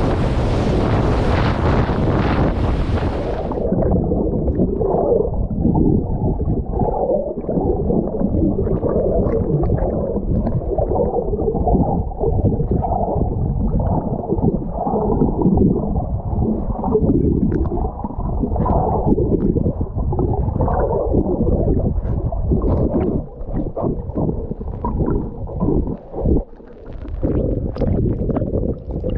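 Wind and surf blowing across the microphone for the first few seconds. About three and a half seconds in, the microphone goes underwater and the sound turns muffled: a loud churning rumble of rough ocean water, surging unevenly.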